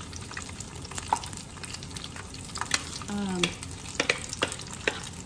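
Apple fritters deep-frying in a pan of hot oil: a steady sizzle with frequent sharp crackles and pops.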